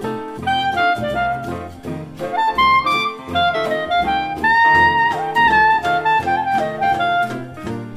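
Background music: a melody on a wind instrument over a bass line and a steady beat.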